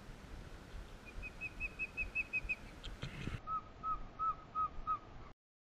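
Osprey calling: a fast series of about eight sharp, upward-hooked whistled chirps, then after a cut a slower series of five lower chirps, over a low rumble. These are the alarm calls of an adult whose nest is being disturbed.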